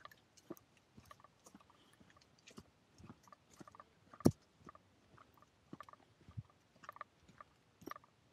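Footsteps crunching on snow- and ice-pellet-covered pavement, about two steps a second, with one louder crunch about four seconds in.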